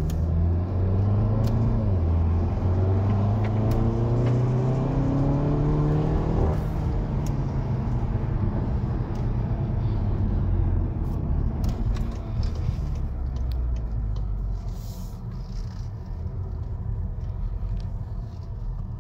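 VW Golf GTI Performance (Mk7, 245 hp) 2.0-litre turbocharged four-cylinder engine and exhaust: the engine note climbs steadily for about six seconds, drops away suddenly, then settles to a low, steady run.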